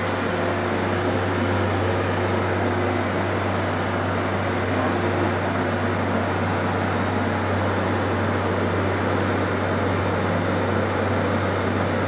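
Milk chiller's refrigeration compressor running during refrigerant charging: a steady low hum with an even rushing noise over it.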